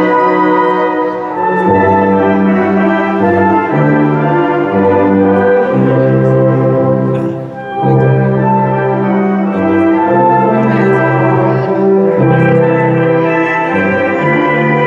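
Brass band music for the dance: sustained horn melody and chords over a moving bass line, playing steadily with a brief dip about seven and a half seconds in.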